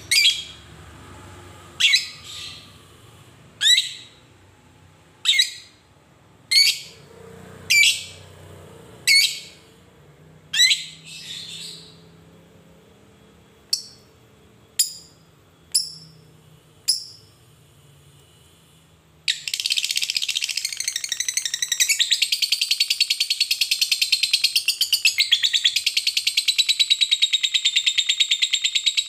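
Fischer's lovebird calling: loud, sharp, falling chirps about every second and a half, then four shorter, higher chirps. About two-thirds of the way in it breaks into a long, unbroken rapid chatter, the 'ngekek' song.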